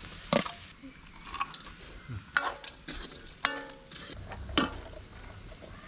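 Wooden spatula stirring fried rice in a metal wok over a wood fire, with a handful of sharp knocks and scrapes of the spatula against the wok and a steel plate.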